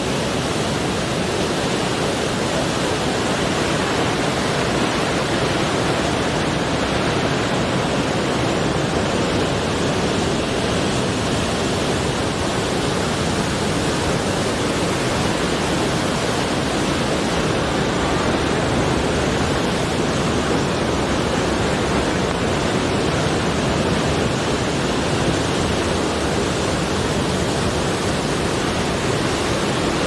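Steady roar of heavy surf breaking over coastal rocks, an even rushing noise with no separate wave crashes standing out.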